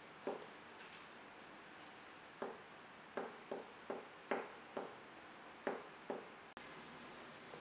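About nine light knocks and clicks, unevenly spaced, from kitchen utensils and containers being handled. They are heard over a faint steady room hiss.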